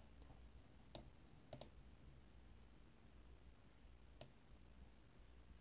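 Faint computer mouse clicks over near silence: a single click about a second in, a quick double click just after, and one more later.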